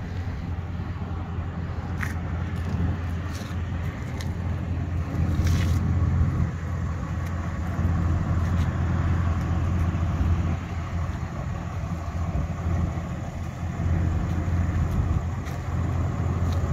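2022 Ram 2500's 6.7-litre Cummins turbo-diesel inline-six idling steadily, a low, even rumble. A few light clicks sound in the first few seconds.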